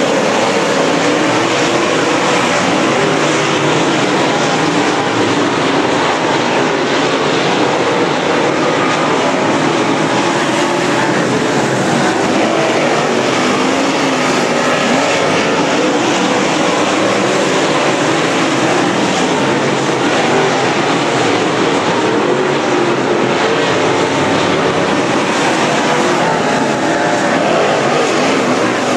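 Dirt late model race cars racing in a pack around a dirt oval, their V8 engines making a loud, steady, continuous noise.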